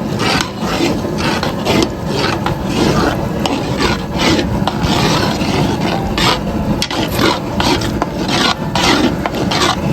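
Paddle stirring a big pot of jambalaya, scraping and rubbing against the pot in repeated strokes, about two or three a second.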